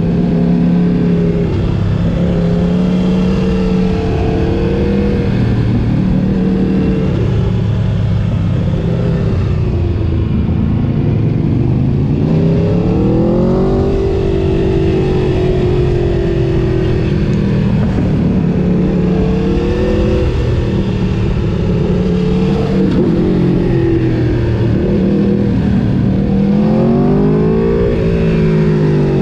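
Sport motorcycle engines revving up and easing off again and again, with a steep climb in pitch near the middle and another near the end.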